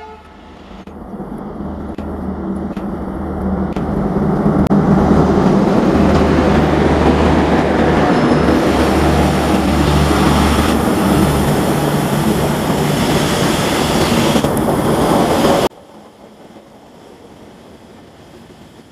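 ALCO diesel locomotive hauling a passenger train past at speed: a deep engine drone and wheel rumble build over the first few seconds and then hold loud and steady. Near the end the sound cuts off abruptly, leaving a much quieter rumble of coaches rolling by.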